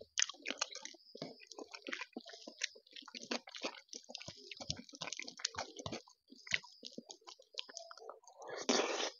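Fingers squishing rice and taro root curry together on a metal plate, a string of small wet clicks and squelches. Near the end a louder, denser burst as a handful is brought to the mouth and eaten.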